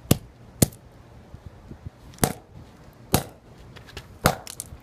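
Five sharp blows striking a flip phone being smashed apart, two in quick succession at the start and then three more spaced about a second apart.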